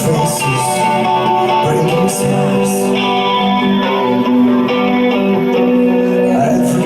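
Live band music led by guitar, with held chords and sustained notes and no singing.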